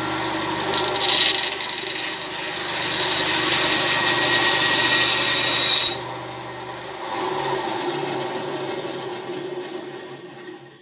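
My Project benchtop wood band saw running, its blade cutting through a roughly 1 cm thick wooden paneling board: a steady motor hum with a loud rasping hiss of the blade in the wood from about a second in, which stops abruptly about six seconds in. The saw then runs on unloaded and fades away near the end. The blade goes through the board smoothly, "like butter".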